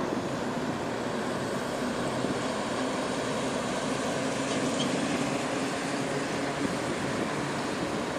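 Road traffic passing close by: a dump truck with a trailer and then a tour coach drive past, giving steady engine and tyre noise that is a little louder in the middle.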